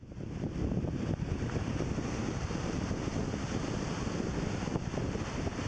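Wind buffeting the camera microphone with a steady rumble, over the wash of waves breaking on a beach.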